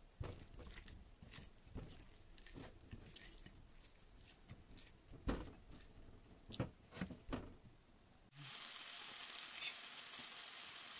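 Hands rubbing seasoning and garlic into raw chicken breasts on a plate, making scattered soft wet clicks and smacks. About eight seconds in, this switches suddenly to chicken breasts sizzling steadily as they fry in a pan.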